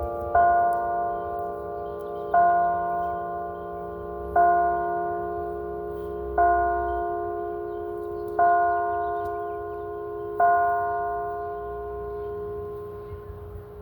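A church bell struck six times at an even pace, one stroke about every two seconds. Each stroke rings on and fades over a steady hum left from the bell's earlier ringing.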